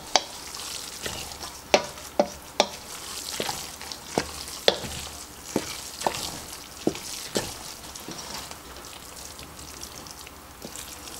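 Wooden spoon stirring a thick, wet cornbread dressing mixture in a stainless steel mixing bowl, with irregular sharp knocks of the spoon against the metal bowl. The knocks thin out after about eight seconds.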